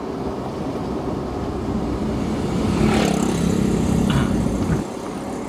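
Car engine and road noise heard from inside the moving car's cabin; the engine note grows stronger about three seconds in and falls back near the end.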